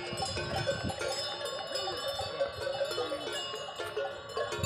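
Many cattle bells on grazing zebu cattle clinking and ringing over one another, without a steady rhythm.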